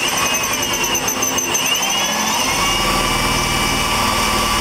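Cordless drill running continuously, boring up through the fiberglass canopy roof through a mounting pad's bolt hole; its motor whine shifts slightly in pitch as it cuts.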